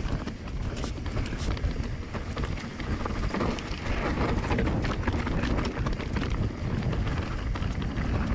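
Mountain bike riding along a dirt trail: wind buffeting the microphone over the tyre noise, with the bike rattling in many quick clicks and knocks.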